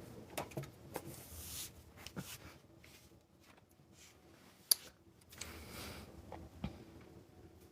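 Quiet room with a few faint scattered clicks and two soft rustles. One sharp click about halfway through is the loudest sound.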